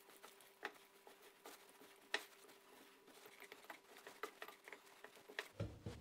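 Hands kneading a stiff durum-semolina sourdough dough in a glass bowl: faint, irregular squishes of the dough and light taps of fingers against the glass, with one sharper tap about two seconds in.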